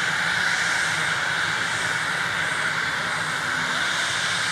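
Cessna Citation Bravo's twin Pratt & Whitney Canada PW530A turbofans running at taxi power: a steady hiss and whine that holds an even level throughout.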